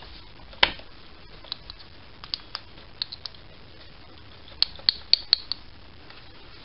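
Small metal parts clicking and tapping as they are fitted by hand onto the trunnion bolt of a model steam engine's single-acting oscillating cylinder: one sharp click about half a second in, a few light ticks, then a quick run of about five clicks around five seconds in.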